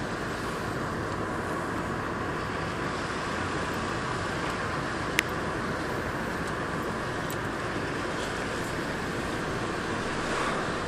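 Steady road and engine noise inside a moving car's cabin, with a single sharp click about five seconds in.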